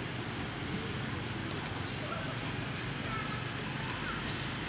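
Steady outdoor background noise with a low rumble, and a few faint short high chirps in the middle.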